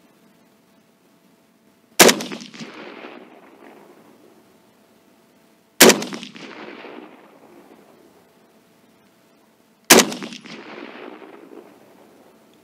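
Three rifle shots from a Saiga-308 semi-automatic carbine firing .308 Winchester, about four seconds apart, each followed by an echo fading away over about two seconds.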